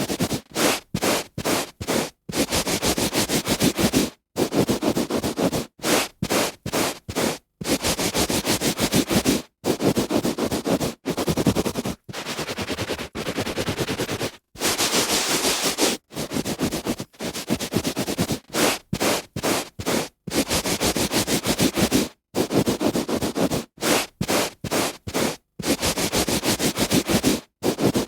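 A hand rubbing back and forth on a carpet: a run of rough, scratchy strokes, some short and quick and some longer sweeps, each broken off by a brief silence.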